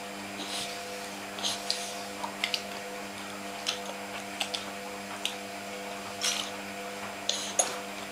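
A toddler sucking on a sippy cup, making short sucking and slurping noises and breaths about once a second, over a steady low hum.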